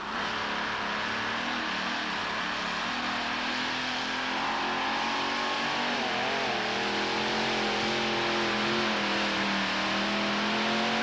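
Multi-engine Modified-class pulling tractor running flat out down the track, a steady loud engine roar. Its engine speed dips and recovers briefly about six seconds in.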